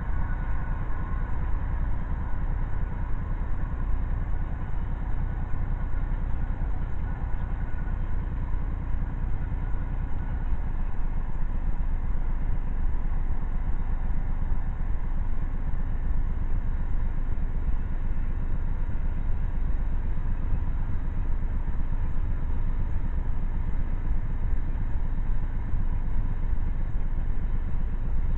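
Double-stack intermodal container freight train rolling past at a distance: a steady low rumble that does not change.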